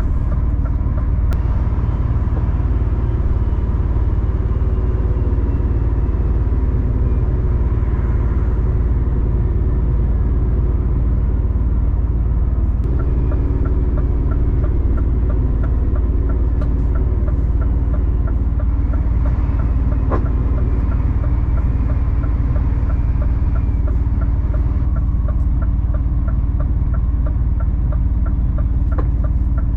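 Engine and road noise of a 26-tonne three-axle rigid lorry heard from inside the cab: a steady low rumble. From about halfway, a fast, regular ticking joins it.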